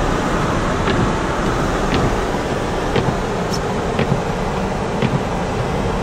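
Car driving on a snowy road: steady road and cabin noise, with a short click about once a second.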